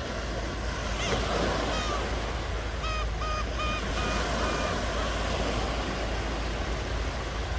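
Ocean surf washing steadily onto a shore. In the first half a bird calls several times, ending in a quick run of short, even notes.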